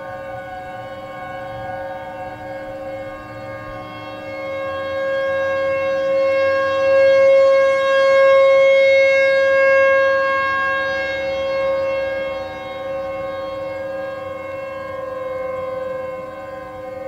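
Outdoor warning sirens sounding a steady tone, several pitches held at once, swelling louder about halfway through and then fading back.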